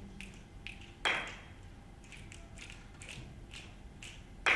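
Many people snapping their fingers in scattered, uneven clicks, with two louder hand claps, about a second in and near the end. Each clap is the signal for more people to join the snapping.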